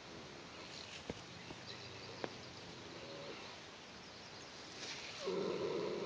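A sleeping baby Belgian snoring softly, with a short snore about three seconds in and a louder, longer snore near the end. Two faint clicks come about one and two seconds in.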